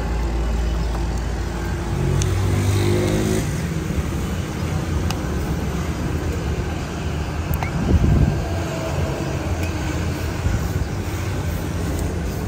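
Steady mechanical and street-traffic drone, with an engine hum that fades out about three and a half seconds in. Over it, scattered knocks come from firewood logs being picked up and thrown into a wood-fired griddle oven, the loudest a thump about eight seconds in.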